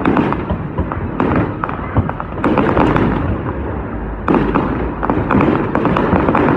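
Fireworks display with shells bursting in quick succession: repeated sharp bangs over dense crackling, with brief lulls about a second in and near the middle.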